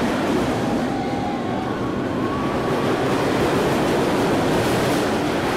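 Mine-train roller coaster running along its track at speed, a steady rushing rumble mixed with wind buffeting the microphone.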